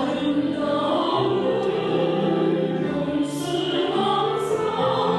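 Women's church choir singing into handheld microphones, holding long sustained notes.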